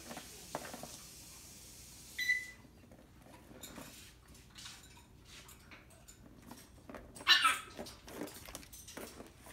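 A kitten plays with a Turbo Scratcher track toy, batting the ball around the plastic ring and scrabbling on the cardboard pad. Scattered small clicks and scrapes, a brief high squeak about two seconds in, and a louder scraping rush about seven seconds in.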